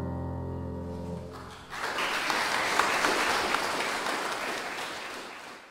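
The last chord of the accompaniment held and fading, then stopping; about a second and a half later audience applause starts and fades out.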